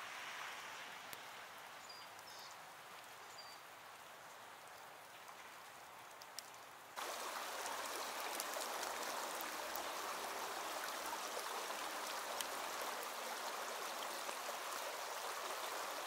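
A faint, steady hiss. About halfway through it cuts to the louder, steady rush of a small creek flowing.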